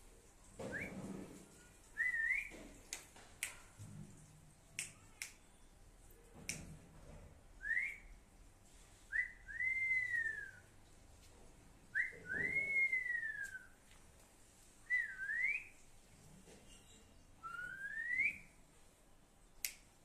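Clear whistled notes, about seven of them: short rising glides and two longer notes that rise and then fall away, with a few sharp clicks in between.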